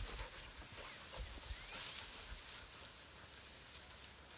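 Faint rustling and light crackling of dry grass and brush as a dog moves through it, with a few soft knocks in the first second.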